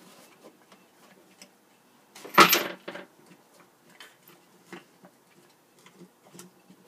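Handling noise from adjusting the iPad camera setup: small clicks and taps, with one louder knock and scuffle about two and a half seconds in.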